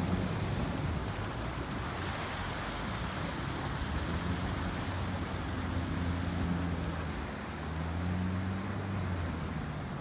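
A Toyota Land Cruiser Prado 120's engine runs with a steady low hum as the 4x4 wades through a deep river. Water rushes and splashes around its body.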